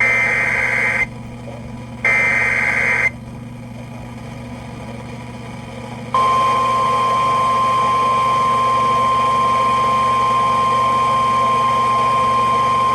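NOAA Weather Radio SAME alert header: two one-second bursts of screechy digital data tones about a second apart, then after a pause of about three seconds the steady single-pitch weather radio warning alarm tone starts and holds, announcing a new warning broadcast.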